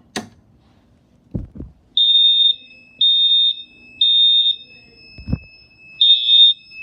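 An EST 270 SPO fire alarm pull station is pulled with a sharp click and a few handling knocks. About two seconds later the Edwards mini horns sound a high-pitched temporal-three pattern: three half-second beeps a second apart, a pause, then the next round begins. A fainter steady tone runs underneath.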